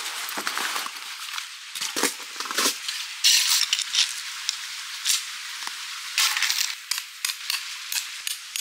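Crunching on crushed-stone gravel with sharp clinks and clatters of metal tent poles being handled and laid down on the stones, a louder rustling crunch about three seconds in.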